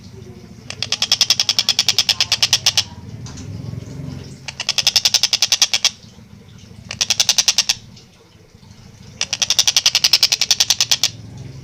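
Tengkek buto kingfisher giving its loud, rapid chattering call: four bursts of fast, evenly spaced high notes, each burst one to two seconds long with short pauses between.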